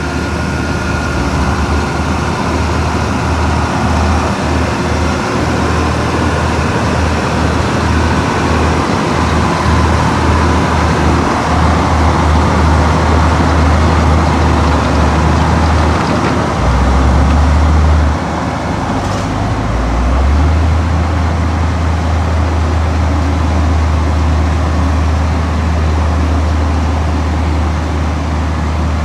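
Heavy diesel earthmoving machinery running steadily with a deep engine rumble and mechanical noise; the low rumble grows heavier for a couple of seconds a little over halfway through.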